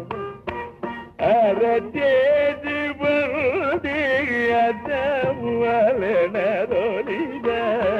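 Carnatic classical music in raga Bilahari: a melodic line with rapid oscillating ornaments (gamakas), with a few mridangam strokes early on.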